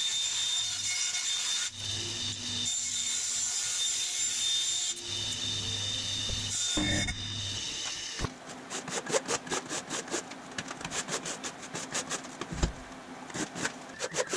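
Vertical bandsaw cutting thin aluminum sheet: a steady motor hum with a high blade whine, dipping briefly twice as the cut goes on, for about the first eight seconds. Then come quick, irregular scraping strokes on an aluminum piece held in a bench vise.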